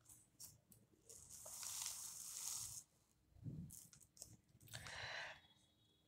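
Faint rustle and scrape of a paper sheet being slid across a table, lasting nearly two seconds, then a shorter rustle about five seconds in.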